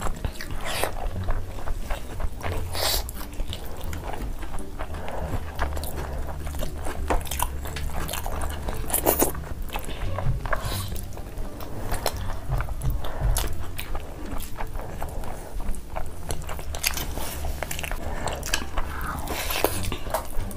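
Close-up mukbang eating sounds: two people biting and chewing chicken legs and spiced rice eaten by hand, with many short mouth and finger clicks.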